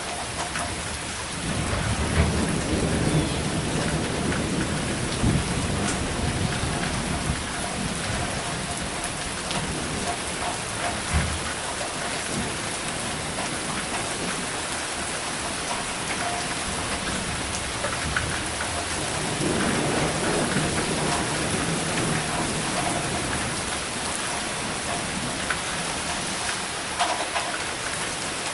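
Steady rain falling in a severe thunderstorm, with thunder rumbling twice: once about two seconds in and again about two-thirds of the way through.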